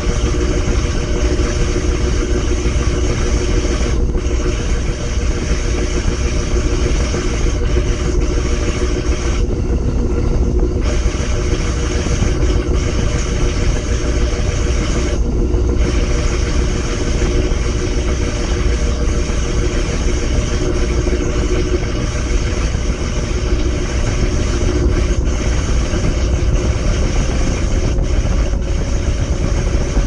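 Top-loading washing machine running, heard from inside its drum: a steady, loud rumble with a constant motor whine that rises slightly in pitch near the end.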